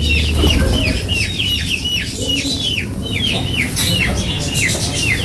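A bird chirping over and over: a steady run of short, falling chirps, about three a second.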